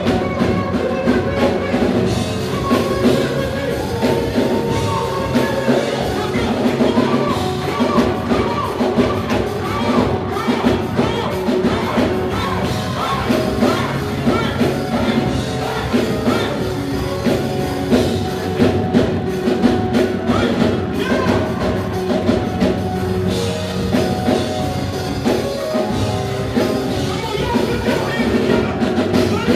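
Live band music with drums and singing, played loud and steady.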